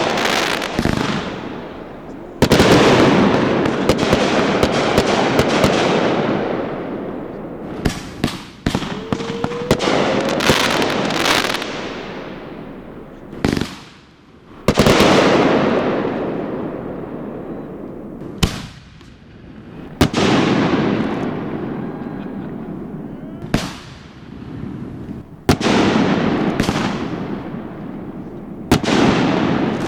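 Aerial fireworks shells bursting one after another, about a dozen sharp bangs, each followed by a long rumble and crackle that fades over a few seconds. A short rising whistle comes about nine seconds in.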